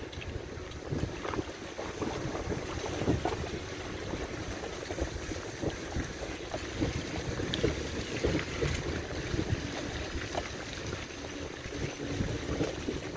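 Wind gusting over the microphone: a rough, uneven low rumble with irregular bumps.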